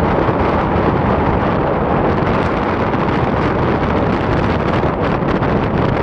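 Strong wind buffeting a phone's microphone: a loud, steady rush of wind noise.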